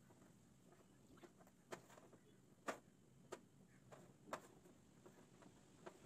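Faint, sharp clicks of a ring-pull tin's metal pull tab being levered up and the lid starting to give, about five clicks spaced irregularly.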